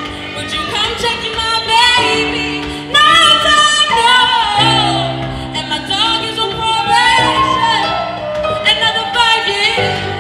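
Live band music with a woman singing an ornamented, wavering melody over sustained chords that change every couple of seconds.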